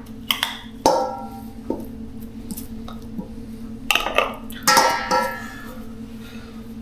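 A teaspoon clinking against the bowl several times, each strike ringing briefly, over a steady low hum.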